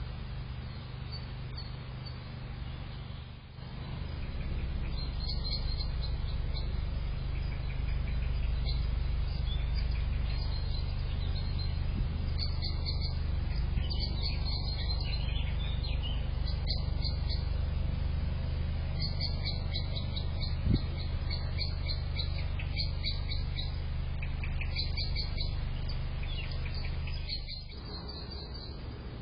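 Small birds chirping in quick repeated calls over a steady low hum, with a single sharp click about two-thirds of the way through.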